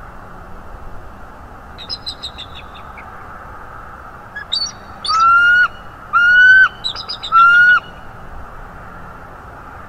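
Bald eagle calling: a quick run of high chirps, then three loud, long whistled notes, each about half a second and ending in a short downward hook, with more chirps between them.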